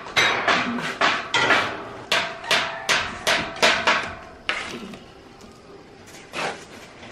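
A quick run of sharp, hammer-like knocks from work on a construction site, about three a second. They stop about four and a half seconds in, and one softer knock follows later.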